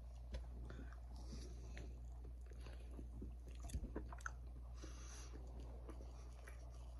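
A man chewing a bite of sauced barbecue chicken patty: faint mouth sounds and small clicks, a little sharper around the middle. A brief rustle of fabric brushing the phone's microphone comes about five seconds in.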